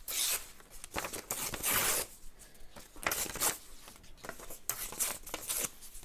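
Book-page paper being torn by hand into small pieces: a series of short rips of varying length, the longest and loudest about two seconds in.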